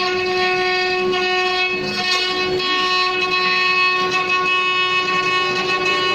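CNC router spindle running at high speed with a steady whine and a stack of overtones while the bit carves into a block of wood, with a few faint ticks from the cut.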